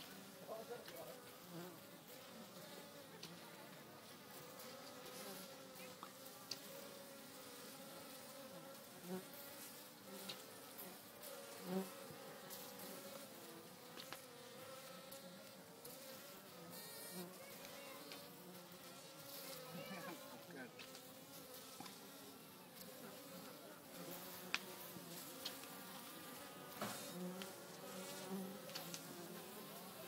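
Honey bees of a wild colony buzzing at their nest entrance: a faint, steady hum of many wings, wavering in pitch, with louder buzzes now and then.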